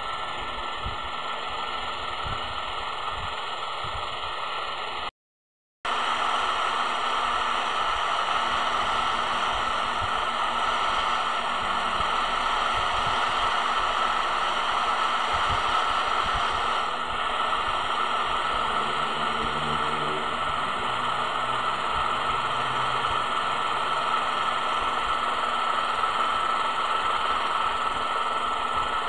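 Helicopter engine and rotor noise heard from inside the cabin: a steady mechanical rush with a constant tone running through it. It cuts out for about half a second about five seconds in, then carries on a little louder.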